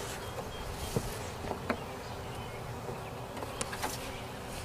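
Honey bees buzzing steadily around an open hive, with a few short knocks from the hive being handled.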